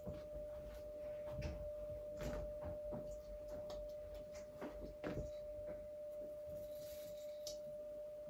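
Light, scattered clicks and rustles of Christmas baubles being handled and hung on a Christmas tree, over a steady faint pitched tone.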